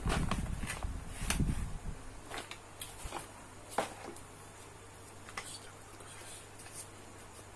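A person eating fried rice close to the microphone: chewing and mouth sounds for about the first two seconds, then a few separate sharp clicks, like a spoon touching the plate, over a low steady hum.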